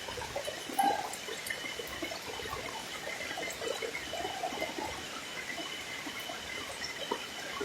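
Water trickling and splashing in small, irregular spurts, with a faint steady high-pitched tone underneath.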